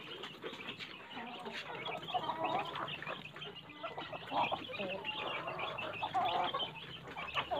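A flock of free-range chickens, roosters and hens together, calling with many short overlapping calls while they peck at feed.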